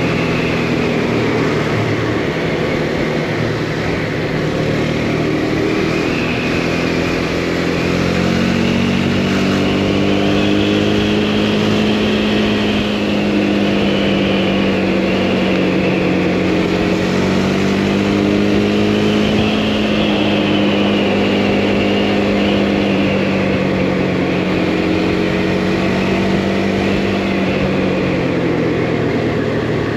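Motorcycle engine running under way at cruising speed, its pitch rising and falling gently with the throttle, over road and wind noise.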